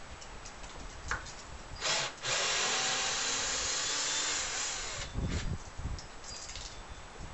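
Power drill working into a wooden post: a short burst, then a steady run of about three seconds, followed by a few knocks.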